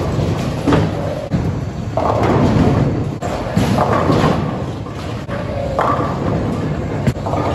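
Bowling alley din: a low steady rumble of balls rolling on the lanes, with repeated heavy thuds and sharp knocks from balls and pins.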